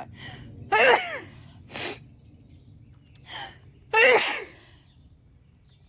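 A woman sneezing during a sneezing fit: two loud sneezes, about one and four seconds in, with short quick breaths between them.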